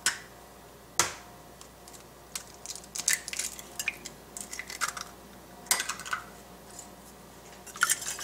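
Eggs being cracked on a glass bowl: two sharp taps of shell on glass about a second apart, then small crackling clicks as the shells are broken open and pulled apart. Near the end a wire whisk starts clinking against the glass bowl.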